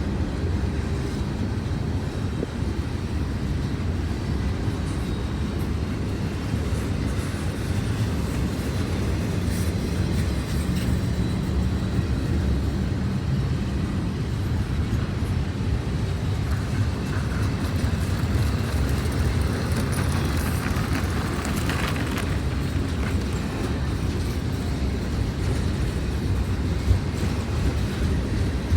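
CSX intermodal freight train rolling past slowly, a steady low rumble of wheels on the rails, with a brief brighter rattle or screech a little after two-thirds of the way through.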